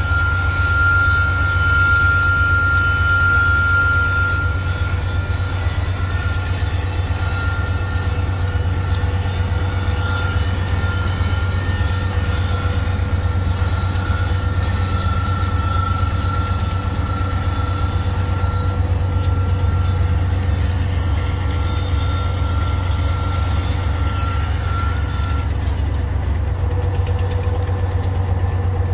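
Union Pacific diesel-electric locomotives (GE AC4400CW, EMD SD70M and GE ES44AC units) running on a heavy manifest train struggling upgrade. A steady low engine rumble carries a steady high whine that stops about 25 seconds in.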